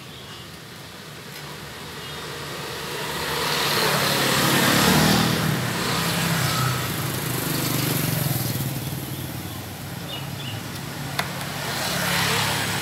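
Road vehicles passing, their engine and tyre noise swelling to a peak about five seconds in and rising again twice more, with a single sharp click near the end.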